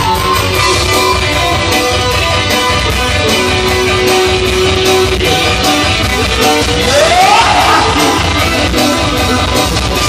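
Live band music led by electric guitar, from a band with keyboard, bamboo flute and kendang drums. About a third of the way in there is a long held note, and about two-thirds of the way in a quick rising sweep.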